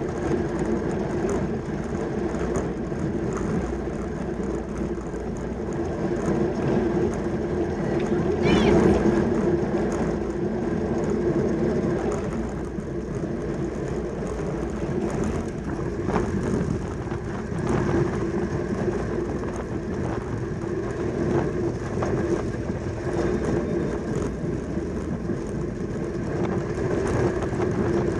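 Steady rolling rumble of track bicycles riding at speed, with a constant low hum and wind noise, briefly louder about nine seconds in.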